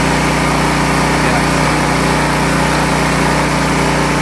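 Briggs & Stratton 208cc single-cylinder engine of a two-stage snowblower running at a steady speed.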